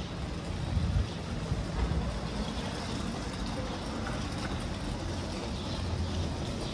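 Street ambience: a steady wash of city traffic noise with uneven low rumbling.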